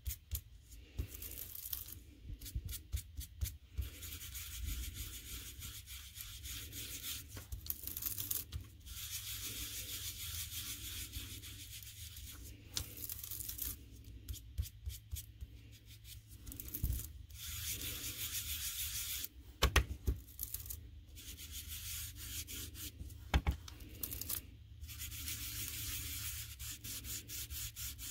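Foam ink blending tool rubbed back and forth over embossed cardstock, laying ink on the raised surface: a dry, scratchy swishing in runs of quick strokes with short pauses between, and a few brief knocks.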